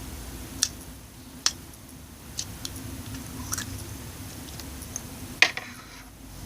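Cotton candy slime being squished and stretched by hand, giving a few sharp sticky clicks and pops, the loudest near the end, over a steady low hum.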